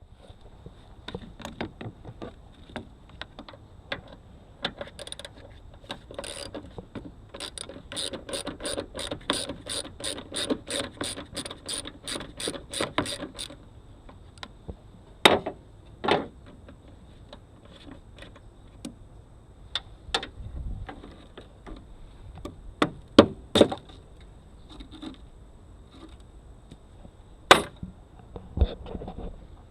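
Socket ratchet clicking in a quick, even run of strokes, about four clicks a second, loosening the nuts that hold a car battery. Separate louder metal knocks follow now and then.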